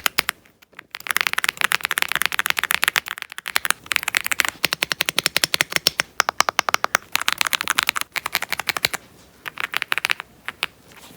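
Fast typing on an Aula F75 Pro mechanical keyboard: dense runs of sharp keystroke clicks, many per second. The runs break off briefly about three seconds in and again around eight to nine seconds in, and thin out near the end.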